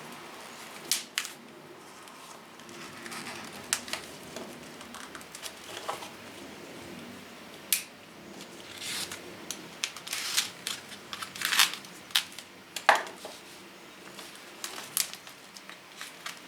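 Irregular clicks, taps and short scrapes of hand work on a knife made from a reciprocating-saw blade, with the loudest sharp clicks a little past the middle.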